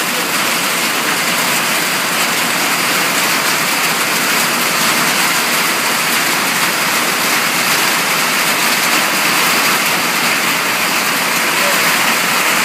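Rain pouring down in a loud, steady hiss.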